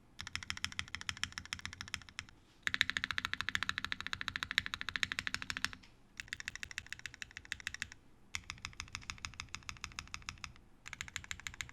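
Mechanical keyboard with SW x Gateron Deepping 4.0 linear switches on an FR4 plate, its modifier keys being pressed in rapid keystrokes. The keystrokes come in bursts of two to three seconds with short pauses between.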